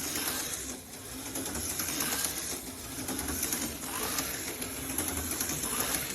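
Slot car running on a track, its small electric motor whining steadily, with the pitch rising and falling every couple of seconds as it goes round the layout.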